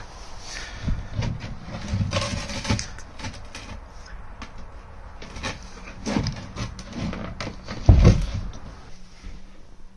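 Scattered knocks and handling thumps on bare chipboard flooring. A loud low thump comes about eight seconds in as a loose chipboard floor panel is lifted.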